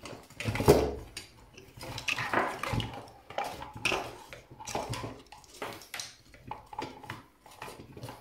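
Irregular clicks and clattering as a computer power supply is pulled apart by hand, its circuit board, heatsinks and wire bundles knocking against the metal case. The loudest knock comes just under a second in.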